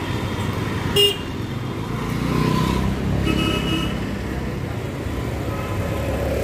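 Road traffic with cars and scooters passing close by, and vehicle horns: a short, sharp toot about a second in, the loudest moment, and a longer honk a little after three seconds.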